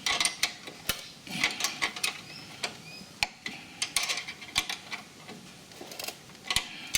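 Irregular metal-on-metal clicks and clinks of a tool tightening a locking nut onto the bolt of a ride-on mower's deck height chain.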